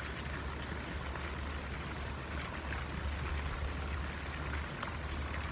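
Steady low rumble of wind on the microphone, with a faint, evenly pulsing high insect trill behind it.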